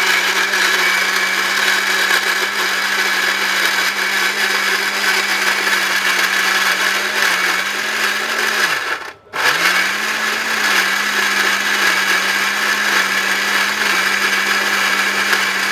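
A 1250 W Jaipan mixer-grinder's motor runs steadily at full speed, grinding ginger with a little water into paste in a stainless steel jar. It stops briefly about nine seconds in, then starts again and speeds back up.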